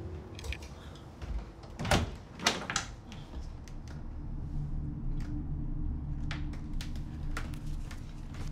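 Interior door being opened: a few sharp clicks and knocks from the latch and handle, then lighter taps later on, over a low steady hum.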